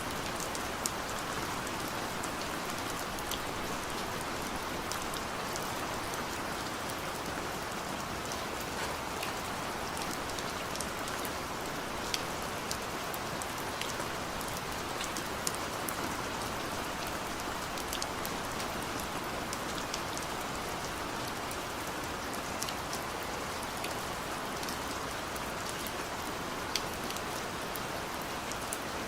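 Steady rain falling, an even hiss with scattered sharp drip ticks of individual drops hitting a surface.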